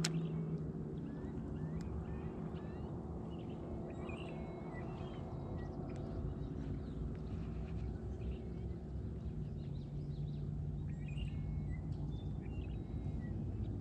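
Small birds chirping now and then over a steady low hum of outdoor background noise.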